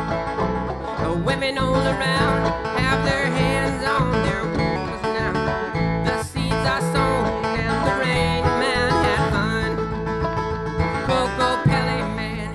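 A live folk band playing a song on plucked string instruments, with a steady beat and no break.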